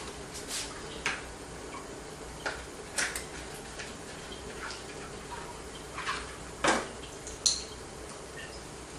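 Scattered light clinks and ticks at an uneven pace, the loudest near the end with a brief ring, over a steady low hum from a home distiller running on an induction hob.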